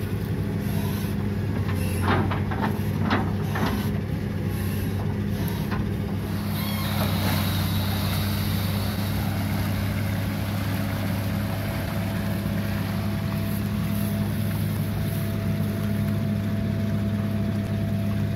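Hitachi UH083 long-arm excavator's diesel engine running steadily. A few sharp knocks come in the first few seconds, and water sloshes and pours as the bucket scoops in the muddy ditch.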